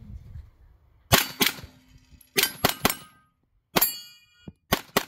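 A string of handgun shots at steel targets, in uneven bursts of one to three shots. Several hits leave the steel plates ringing briefly with a clear metallic tone.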